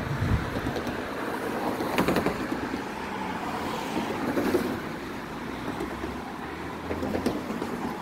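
Road traffic: cars driving past on a multi-lane street, with a few brief knocks.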